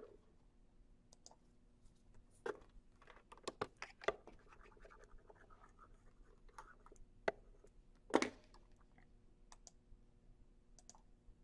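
Faint scattered clicks and taps of a computer mouse and desk handling, with a louder scrape about eight seconds in and a faint steady hum underneath.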